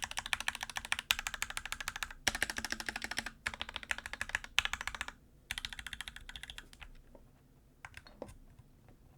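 Fast typing on a Gamakay CK68 mechanical keyboard with its stock switches and stock stabilizers: a dense run of key clacks that thins out after about five seconds to a short burst, then a few single keystrokes near the end. The stock stabilizers don't sound the best.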